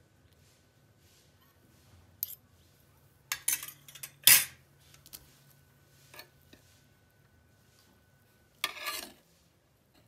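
Metal serving spoon and fork clinking and scraping against a metal pot and tray as rice is scooped out: scattered sharp clinks, the loudest about four seconds in, and a longer scrape near the end.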